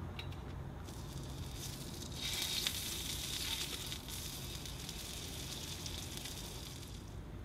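Meat sizzling on a hot Nanbu ironware cast-iron plate. The hiss swells sharply about two seconds in, as food hits the hot iron, and eases off near the end.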